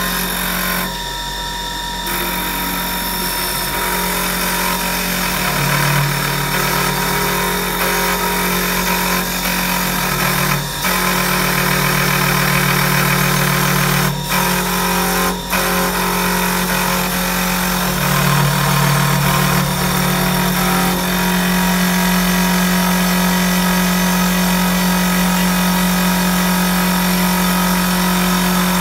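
CNC wood lathe running: the headstock spins a wooden blank while the turning cutter and the router spindle carve it, a steady machine hum under the noise of the cutting wood. The sound dips briefly a few times near the middle.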